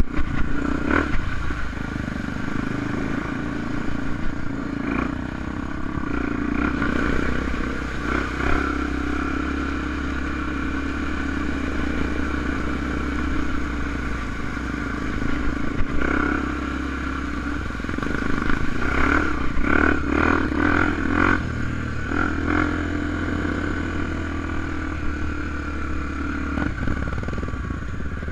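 Honda Tornado 250 enduro motorcycle's single-cylinder engine running steadily as the bike is ridden on dirt, with repeated clattering knocks from the bike over rough ground, most of them clustered about two-thirds of the way in.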